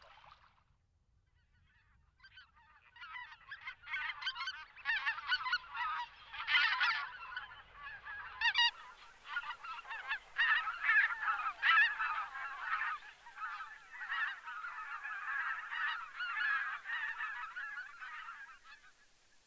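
A flock of wild geese calling, many honking calls overlapping. They fade in after a couple of seconds of near silence and fade out near the end.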